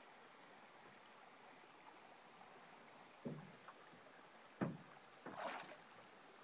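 Two dull knocks on the canoe hull, a little over a second apart, then a short splash as a big northern pike is lifted out of the water beside the canoe.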